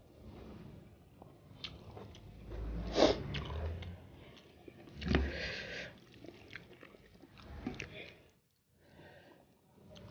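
Close-up eating sounds: chewing and lip-smacking of fried fish and rice eaten by hand, with scattered small clicks and two louder sharp smacks about three and five seconds in.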